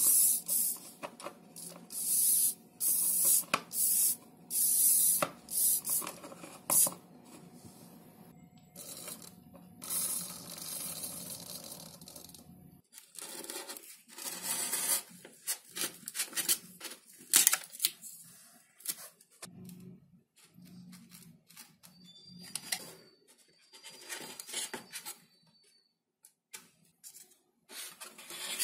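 EMAX ES08D II micro servos driven from a servo tester: their motors run in a string of short, loud bursts over a steady hum for about the first dozen seconds. After that, a snap-off craft knife scores and cuts XPS foam board, with scratchy cutting and rubbing sounds and light taps as pieces are handled.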